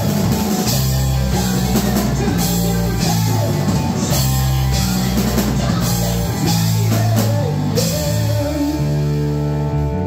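Live rock trio of electric guitar, electric bass and drum kit playing an instrumental passage with crashing cymbals. About eight seconds in the drums stop and the guitar and bass let a chord ring on.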